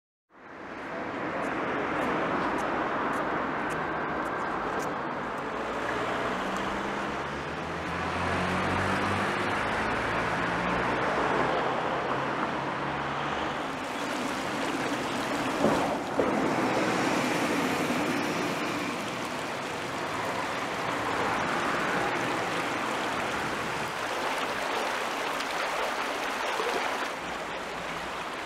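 Steady rushing street ambience of road traffic, with a vehicle engine passing about a third of the way in. A single short knock comes about halfway through.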